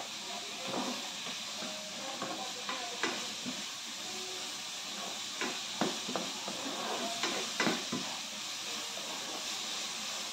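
Pieces of pork sizzling in a stainless steel frying pan as their fat renders out, with a steady hiss and scattered spattering pops, and a spoon scraping and tapping against the pan now and then.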